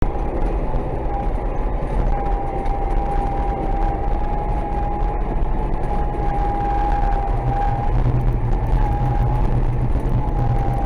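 DT-75 crawler tractor's diesel running steadily, a low rumble under a high, steady whine.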